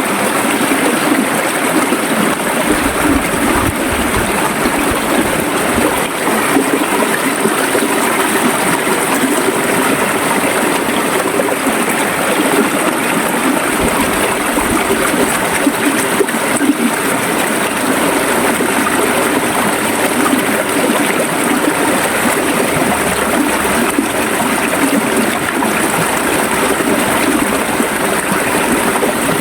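River water flowing and gurgling over stones, a steady, dense rush.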